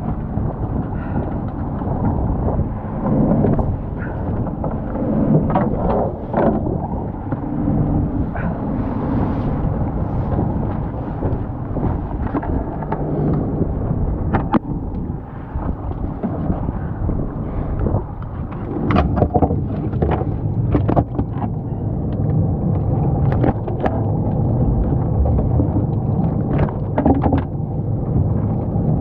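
Fishing boat's engine running steadily under wind buffeting the microphone, with scattered sharp knocks and clatters on deck.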